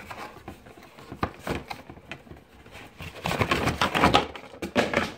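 Cardboard shoebox being opened and handled, with clicks and rustling of the packaging that grow louder and busier about three seconds in as the box is tipped open to show a pair of Nike slides.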